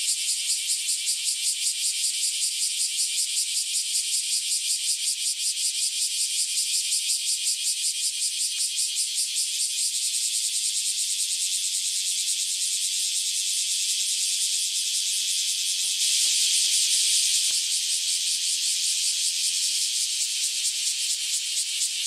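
Cicadas singing in chorus: a loud, high, steady buzz made of very rapid pulses, swelling briefly about sixteen seconds in.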